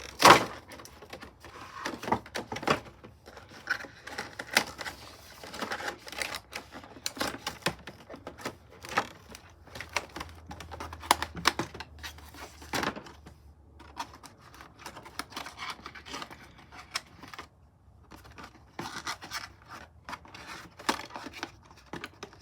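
Plastic and cardboard doll packaging being worked open by hand: irregular clicking, crinkling and scraping as plastic fasteners are unhooked, with a loud snap right at the start.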